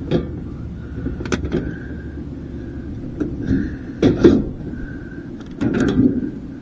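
Irregular knocks and rattles of dishwasher parts being pried apart and handled for scrap metal. The loudest clatters come a little past the middle and again near the end.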